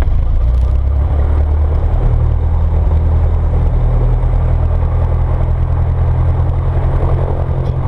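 Light single-engine propeller airplane's piston engine and propeller running during the landing roll-out, heard from inside the cockpit as a steady low drone. The drone shifts slightly in pitch about two and a half seconds in.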